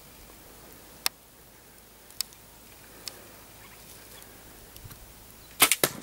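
A few single sharp ticks about a second apart, then near the end a sudden burst of loud snaps and thuds as an arrow from a bow strikes an impala ram and the animal bolts, scuffing dust.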